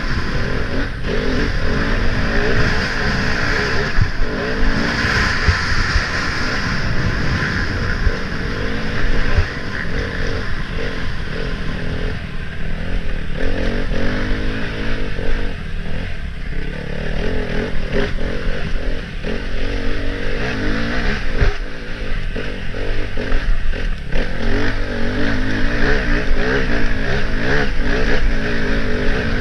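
Enduro motorcycle engine being ridden hard off-road, its pitch rising and falling as the throttle opens and closes, with knocks and rattles from the bike over rough ground, heard from a camera mounted on the bike.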